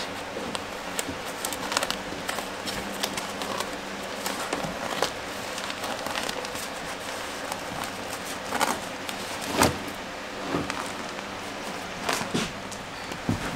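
Manual staple gun snapping at irregular intervals as the paper flange of kraft-faced fiberglass batt insulation is stapled to wooden floor joists, with the paper crinkling between shots. A box fan hums steadily underneath.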